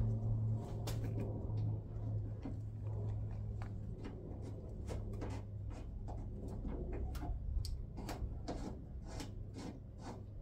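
Harbor Freight hand nut rivet tool setting a threaded rivet nut: a run of short metal clicks, about two a second and coming faster in the second half, over a low steady hum.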